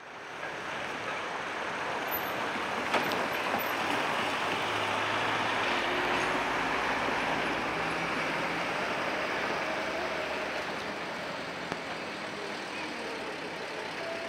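Steady city street traffic noise, fading in at the start and swelling a little toward the middle, with one sharp click about three seconds in.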